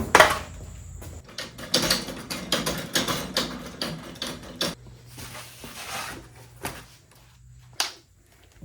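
Tools and hardware clattering as a metal drawer or tool box is rummaged through: a quick run of knocks and rattles that thins out toward the end, with a low hum for a few seconds past the middle.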